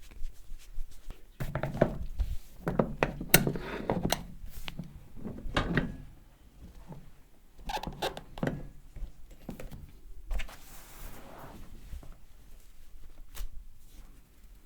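Hands working over a person's head and back during a massage: quick runs of slaps and thuds with sharp clicks in two bursts, then a brief stretch of rubbing about two-thirds of the way in.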